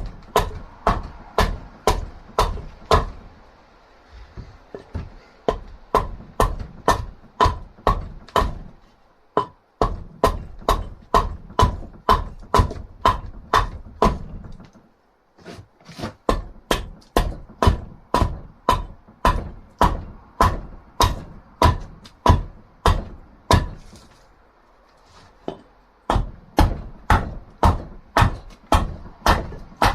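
Repeated chopping blows into a piece of dried wood, about two a second with short pauses every several seconds. Each blow is a sharp knock with a brief ringing tone.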